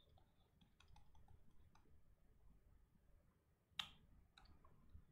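Near silence with faint scattered clicks and taps of a stylus on a pen tablet while handwriting, and one sharper click about four seconds in.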